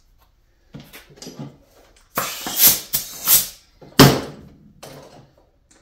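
Rubber inner tube and tyre being handled: several short scraping, rubbing sounds, then a single sharp thump about four seconds in.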